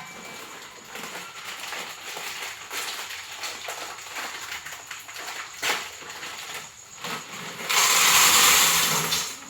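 Kitchen preparation noises: scattered light knocks and rustling while ingredients and utensils are handled, then a loud steady hissing rush lasting about a second and a half near the end.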